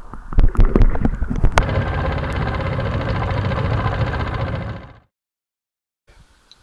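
A run of irregular thumps and knocks, heard underwater, then from about a second and a half in an outboard motor running steadily as it pushes an aluminum fishing boat along; the motor sound fades out about five seconds in.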